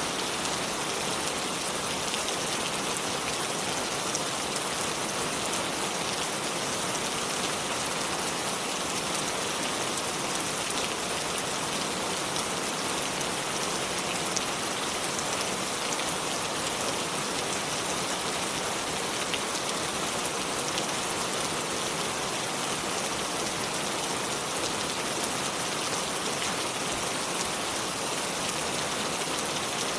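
Steady, even hiss of splashing water with fine pattering, unchanging throughout.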